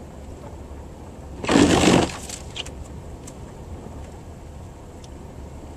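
Vehicle driving slowly along a snow-covered road: a steady low rumble from engine and tyres. About a second and a half in comes a loud, rushing crunch lasting about half a second, followed by a few faint clicks.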